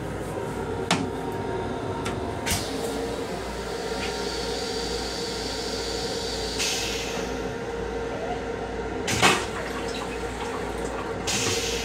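Stainless-steel train toilet flushing. A hiss of rinse water into the bowl starts about six and a half seconds in, a sharp clunk comes just after nine seconds, and another hiss starts near the end, all over the railcar's steady hum. Two short clicks come earlier.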